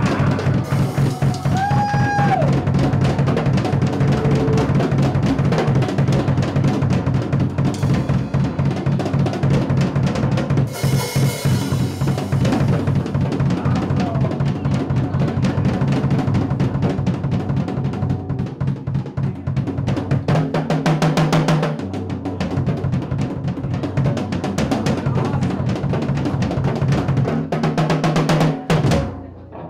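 Rock drum kit played hard and fast: rapid bass-drum strokes under snare rolls and cymbal crashes, with a short break just before the end.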